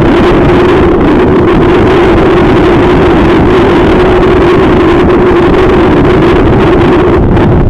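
Small inflatable boat's motor running steadily with an even hum, under loud wind noise buffeting the microphone in strong wind.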